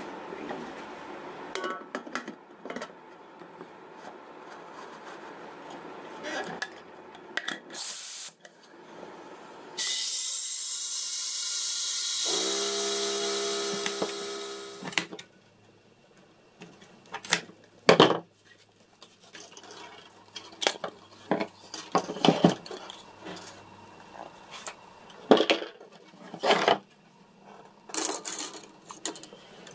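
Metal clatter and knocks around an aluminium pressure-pot, then compressed air hissing steadily into the closed pot for about five seconds, with a steady hum joining partway through, before it cuts off. Afterwards a few sharp knocks and clicks as the silicone mold is handled.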